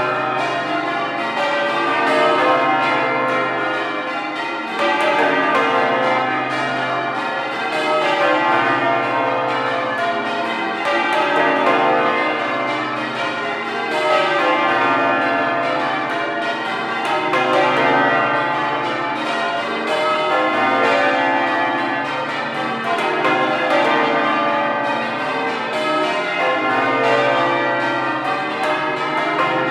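Change ringing on Exeter Cathedral's ring of twelve church bells: the bells strike one after another in an unbroken stream of overlapping, ringing tones, swelling and fading every few seconds.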